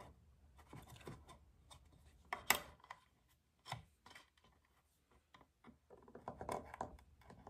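Faint scratching and light ticks of a chisel tip scoring a marking line into walnut along the steel blade of a combination square. A sharper tick comes about two and a half seconds in, and a quicker run of scratches near the end.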